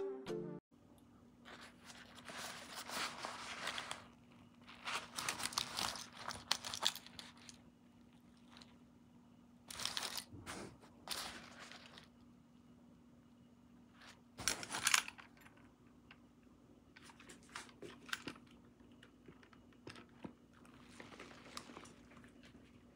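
Irregular crinkling and rustling, like something being handled, coming and going in bursts. The loudest burst comes a little under two-thirds of the way in, over a faint steady low hum.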